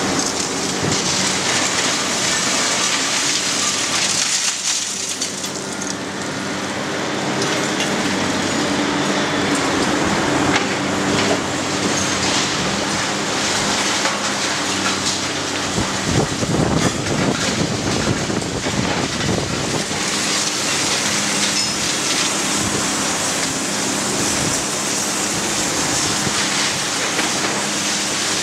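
Demolition: a heavy machine's engine runs steadily while building material crunches, cracks and clatters as it is broken. Just past halfway a louder stretch of crashing debris covers the engine for a few seconds.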